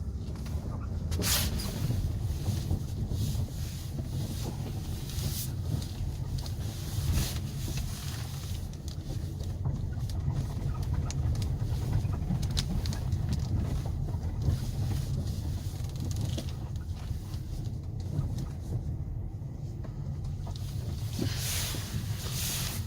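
A car's low, steady rumble with wind buffeting on the microphone, and a few short rushing noises, the longest near the end.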